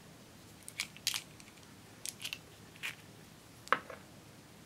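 Small plastic and glass cosmetic bottles being handled, giving a series of sharp clicks and taps, the loudest about three and a half seconds in.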